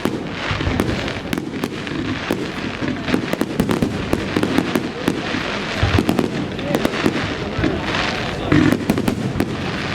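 Fireworks display: a rapid, irregular run of bangs and crackling pops, with people talking in the crowd.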